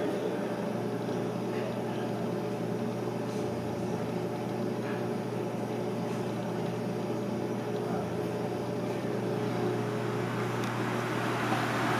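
Steady low machine hum with a faint background wash, with a few faint ticks.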